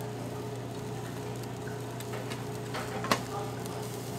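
Beef grilling at a tabletop restaurant grill: a steady low hum under a faint sizzle, with scattered light ticks and one sharper click about three seconds in.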